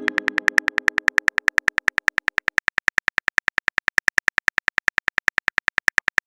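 Rapid, evenly spaced keyboard typing clicks of a texting sound effect, about nine a second. In the first second, the tail of a ringing chime-like tone fades away beneath them.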